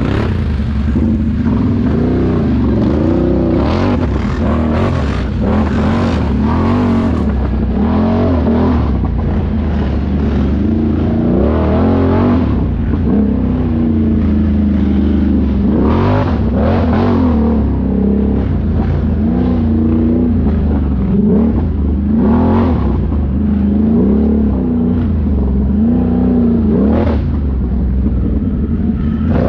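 ATV engine running under load, its revs rising and falling again and again as it is ridden.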